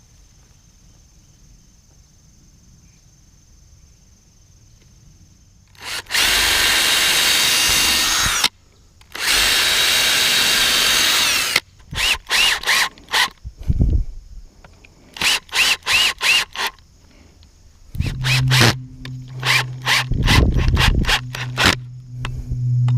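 Power drill running in two long runs of about two seconds each, starting about six seconds in, then triggered in a string of short bursts. A low steady hum joins in near the end.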